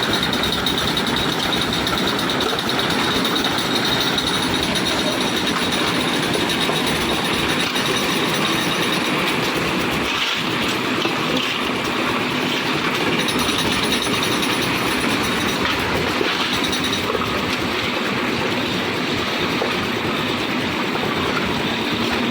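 Concrete mixer machine running steadily.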